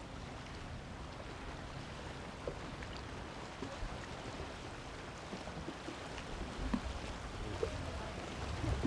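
Seawater lapping and splashing against a concrete harbour quay, a steady wash with small scattered clicks and a low rumble that grows louder near the end.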